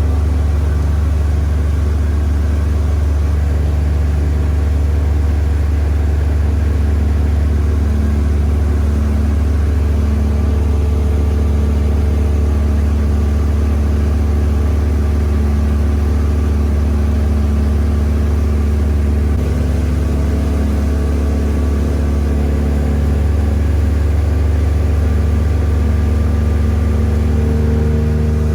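A tour boat's motor running steadily under way, with a deep, even drone and a few steady higher tones.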